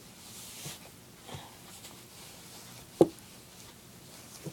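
Soft handling sounds of a plush toy dog being dressed in fabric clothes on a wooden table, with a few light knocks and one sharp knock about three seconds in.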